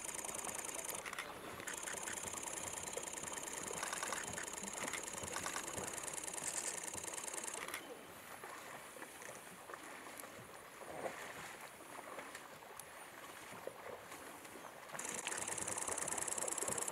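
High, finely pulsing insect buzz. It cuts out about eight seconds in and starts again near the end, with softer rustles and small splashes in between.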